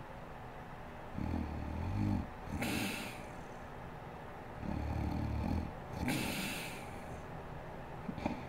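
A sleeping woman snoring: two low snores about three and a half seconds apart, each followed by a short, breathy rush of air.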